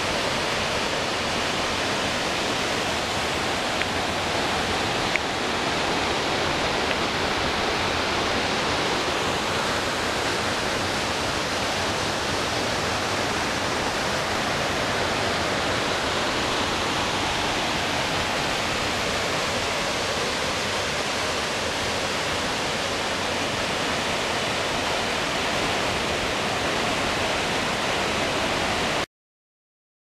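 Waterfall pouring into a rock pool: a steady, unbroken rush of falling water that cuts off suddenly about a second before the end.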